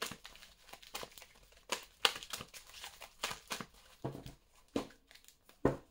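A deck of oracle cards being shuffled by hand: soft, irregular rustling and flicking of the cards with a few sharper snaps, and a dull knock near the end.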